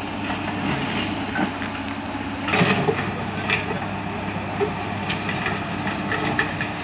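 Crawler excavator's diesel engine running steadily while its steel tracks and bucket clank and knock, with a burst of clatter about two and a half seconds in and more irregular clanks near the end.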